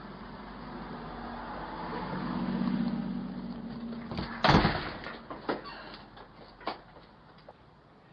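A motor vehicle's low engine hum swells and fades, then a single loud thump about four and a half seconds in, followed by a few lighter knocks.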